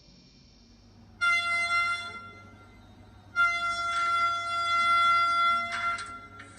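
Digital sound decoder in a Kato Japanese model train playing a train horn through its small speaker: a short blast about a second in, then a long blast of about two and a half seconds.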